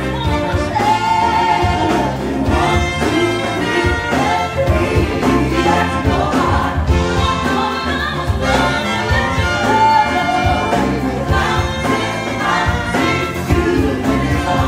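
Live band playing a song with a singer, over a steady beat.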